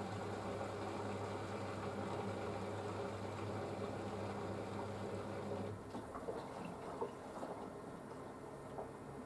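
Panasonic front-loading washing machine on a wool cycle: a steady motor hum that cuts off about six seconds in, followed by faint water sloshing and dripping in the drum.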